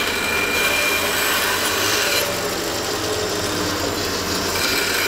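Bandsaw running with a steady hum while its blade cuts a kerf into the end of a wooden axe handle. The blade hisses through the wood for about two seconds, eases off, and bites in again near the end.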